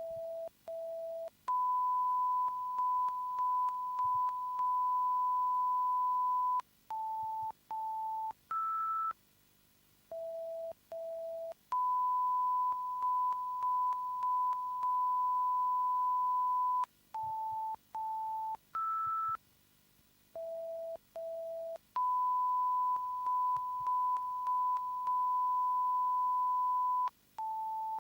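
BLITS 5.1 surround line-up tones. Each cycle is two short lower beeps, a long steady tone with brief dips, two slightly higher beeps and one higher beep, repeating about every ten seconds. Each beep identifies one speaker channel (front left and right, centre, surrounds), and the long tone is the stereo level reference.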